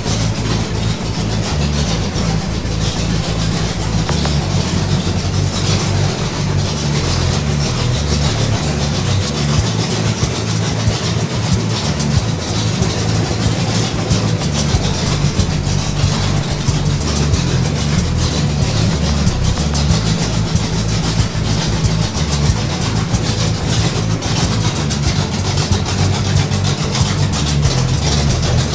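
Freshly broken-in 410 cubic inch stroker V8 in a 1973 Ford Bronco, idling steadily with a choppy, low-pitched exhaust pulse.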